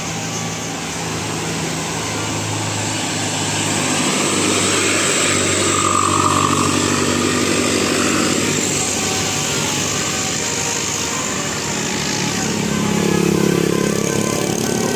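Road traffic: vehicle engines running and passing, growing louder about four seconds in and again near the end.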